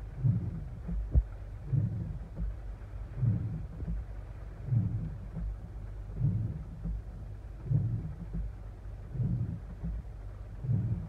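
Car windshield wipers sweeping across a rain-soaked windshield, giving a low thump about every second and a half, heard from inside the cabin over faint rain.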